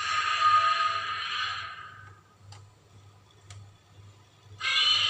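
Godzilla's screeching roar, the 2002 film version of the sound effect: one roar fades out about two seconds in, and after a short gap with two faint clicks a second roar starts near the end. A low electrical hum runs underneath.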